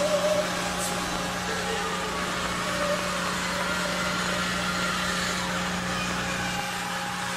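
Eerie soundtrack of a horror flash animation: a steady low hum under a haze of static-like noise, with faint wavering tones drifting through it. The low hum thins out near the end.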